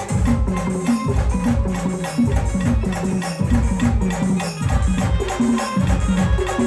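Indian brass band playing a folk song: heavy drum beats with shaker and tambourine-like jingles driving a steady rhythm under the melody.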